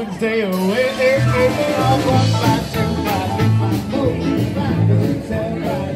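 Live band playing upbeat rock and roll through a PA: saxophone and electric guitar over a steady, stepping bass line.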